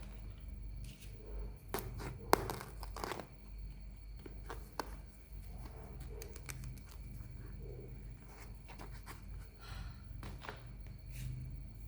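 Close-up handling of a toy and its plastic packaging: scattered small clicks, taps and brief crinkles, with one sharp click about two seconds in.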